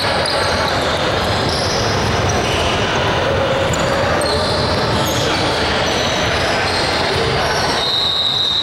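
Busy gymnasium din: basketballs bouncing and sneakers squeaking on the hardwood floor, echoing in the hall.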